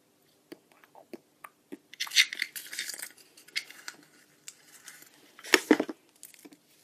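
Hands handling a small cardboard box and a folded paper slip: scattered light clicks, then rustling of paper being unfolded, with one louder knock about five and a half seconds in.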